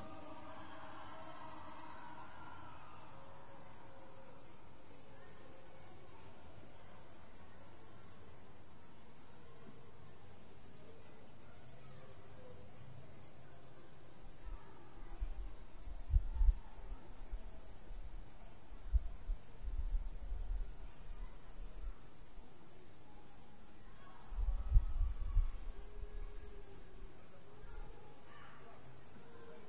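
Crickets chirping in a steady, high-pitched evening chorus. A few brief low rumbles come in about halfway through and again near the end.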